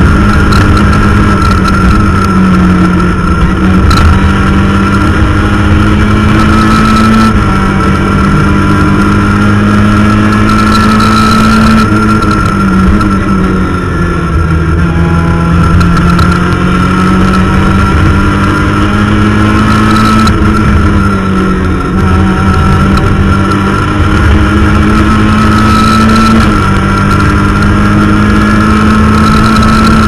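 Rally car engine at high revs, heard from inside the cabin at full rally pace. Its pitch climbs and falls back several times as the driver shifts, lifts and accelerates again.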